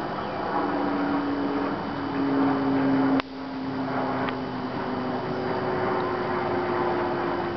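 A motor running steadily at a held pitch that shifts slightly, with a sharp click about three seconds in.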